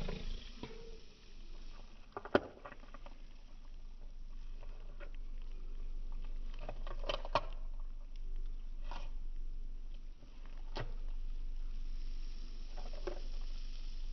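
White-tailed deer chewing food close by: soft irregular crunches and clicks, the sharpest about two seconds in.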